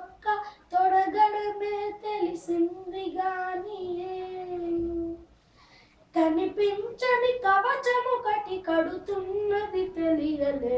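A boy singing a Telugu ghazal unaccompanied, in long held notes with ornamented turns. He breaks off for about a second a little past the middle, then begins a new phrase.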